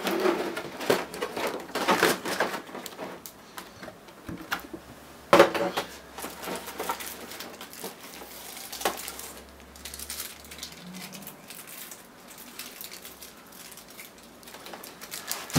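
Plastic packaging and a boxed collectible figure being handled while the figure is worked out of its tray: scattered clicks, scrapes and rustles, with one sharp knock about five seconds in.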